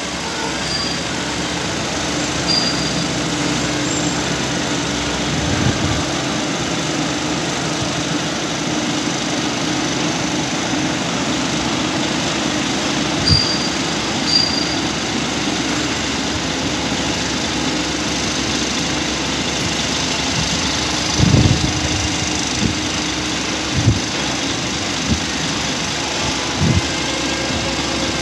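Excavator engine running steadily at a work site, with several short thumps and knocks along the way.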